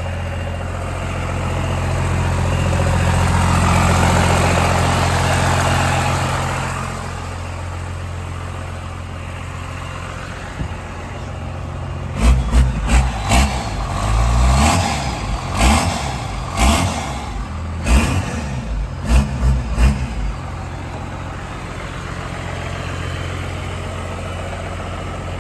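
First-generation Dodge truck's engine running steadily, swelling louder for a few seconds near the start, then revved in a quick string of throttle blips for about eight seconds in the middle before settling back to an even idle.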